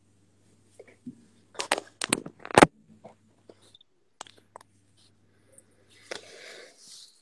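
Fountain pen and paper being handled on a desk: a quick cluster of knocks and clacks about two seconds in, then a few fainter ticks and a soft rustle near the end.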